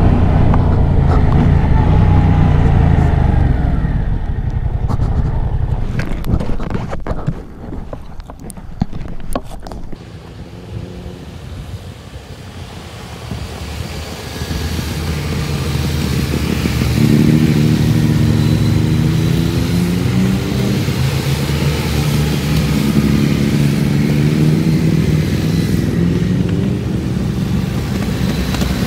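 Yamaha MT-07's parallel-twin engine under way. The engine note drops away in the middle to a quieter stretch with a run of clicks and knocks, then picks up again with a rising pitch as the bike accelerates, and runs steadily for the rest of the time.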